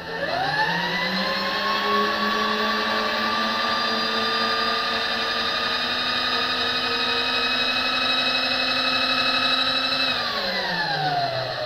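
Electric motor on an RF-31 mill-drill spinning up over about a second, running at a steady whine, then winding down in pitch near the end as the X-axis table is driven along.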